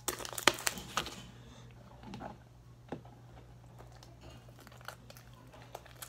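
Sticky, watery slime being stretched and kneaded by hand, giving a dense burst of crackling clicks in the first second, then scattered single clicks and squelches.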